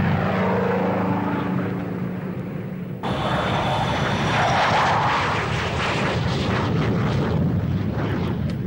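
A Douglas A-1 Skyraider's piston radial engine drones steadily as the propeller plane climbs away from a carrier deck. About three seconds in, the sound cuts abruptly to the loud rushing noise of an A-4 Skyhawk jet launching off a steam catapult, swelling a second or two later.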